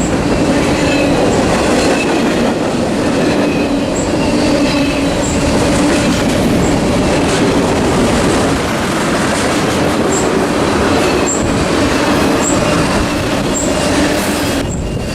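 Freight cars of a BNSF train rolling past at speed: a steady, loud rumble of wheels on rail, with regular light clicks and faint wheel squeal.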